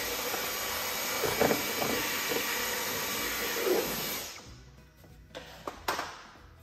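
Cordless stick vacuum running in a wooden drawer, with a faint high whine and a few short crackles as bits of debris from the corners are sucked up. It shuts off about four seconds in and winds down, followed by a couple of light clicks.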